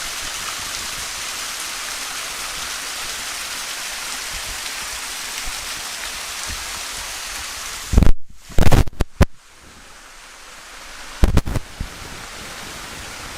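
Steady hiss of rushing water, rain-like. About eight seconds in, several loud knocks come close together and the water noise drops; a few more knocks follow near eleven seconds.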